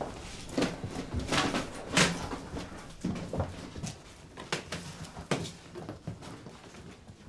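Cardboard boxes being opened and handled: flaps pulled back and cardboard rustling and scraping, with irregular knocks, the loudest about two seconds in.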